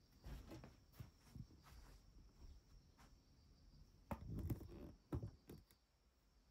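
Near silence with scattered soft clicks, and a short cluster of low thuds and knocks about four seconds in.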